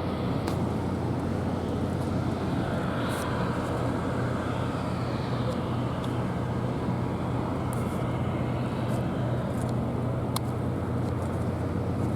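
Steady low drone of an idling engine, with a few faint clicks on top.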